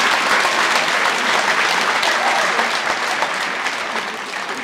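Crowd applauding a player's introduction, the clapping slowly dying away toward the end.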